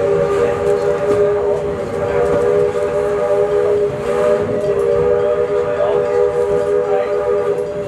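Steam locomotive's chime whistle sounding one long, steady blast, several tones together. It cuts off near the end, over the rumble of the moving train.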